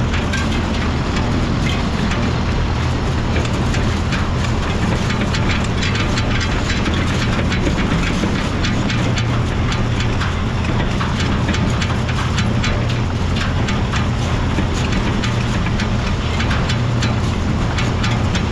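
Tractor engine running steadily while pulling a hay rake, with a fast, continuous rattling clatter over the low drone.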